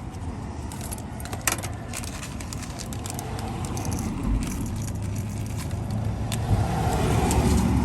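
Small metal deadbolt clips clicking and clinking now and then as they are handled and dropped into bins, one sharper click about a second and a half in. Underneath, a vehicle's low steady rumble grows louder in the second half.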